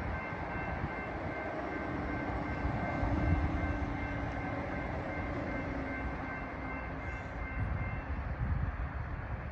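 Electronic grade-crossing bell ringing steadily over a low rumble as the gates lift, then falling silent about eight seconds in.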